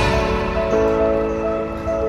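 Background music: soft sustained melodic notes, changing pitch about every second, after a louder, fuller passage breaks off at the start.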